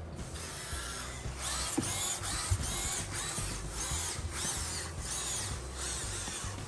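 ClicBot modular robot's electric motors whirring as it drives on its wheels, with a whine that rises and falls again and again.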